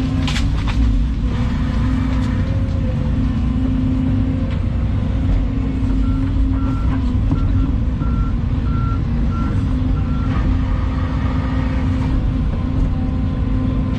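Volvo EC220 excavator's diesel engine running steadily with a deep hum. A run of short, high-pitched beeps sounds about six seconds in and stops about four seconds later, and a sharp knock comes just after the start.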